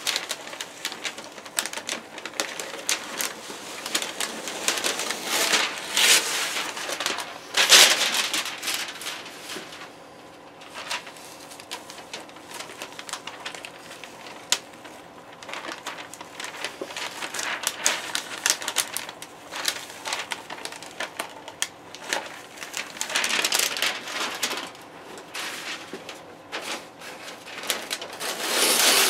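Brown masking paper and tape being peeled off a freshly spray-painted checkerboard, the paper crinkling and rustling in irregular bursts with sharp crackles, loudest about eight seconds in and again near the end.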